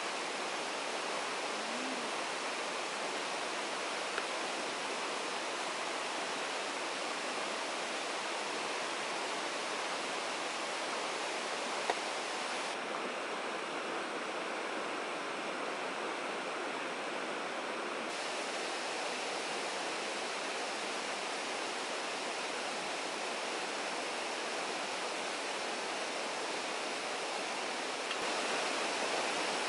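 Steady rushing of flowing water from a nearby stream, an even hiss without rhythm, with a light click twice.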